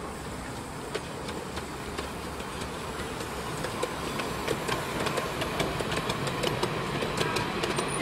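Miniature railway train drawing closer: a steady running rumble that grows gradually louder, with sharp clicks from the wheels on the track coming more often in the second half.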